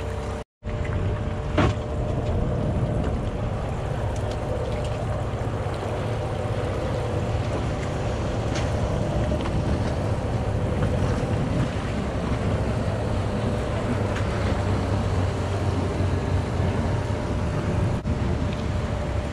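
Steady low hum of a boat's engine, with wind and sea noise around it. The sound cuts out for a moment about half a second in, and a sharp click follows about a second later.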